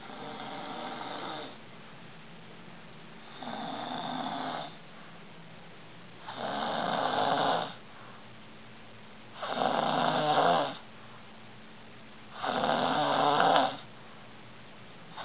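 A man snoring in a steady rhythm: rough snores each lasting over a second, about three seconds apart, five in a row with a sixth starting at the very end. Each snore is louder than the last until the fourth or fifth.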